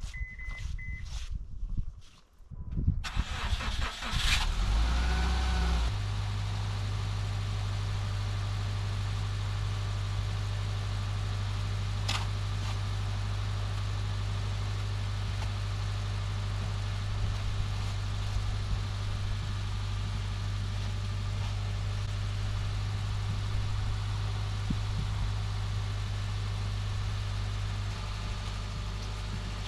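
A car engine is started on a cold snowy morning: after a short high beep it catches about three seconds in, revs briefly, then settles into a steady idle to warm up.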